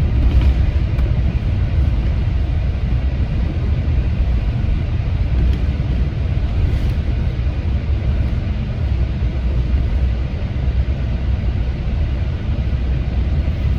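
City bus in motion: a steady low rumble of engine and road noise.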